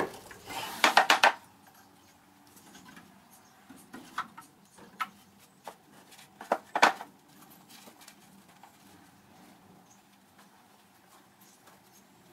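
Sand mould being broken out: a quick run of sharp knocks and wooden clatter as the moulding flask is lifted off, then scattered clicks and light scraping in the loose moulding sand as the metal casting is dug free with a small tool.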